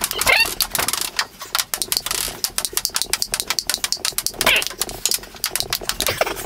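Table tennis ball clicking back and forth between paddles and the table in a fast rally: a dense run of sharp clicks, several a second.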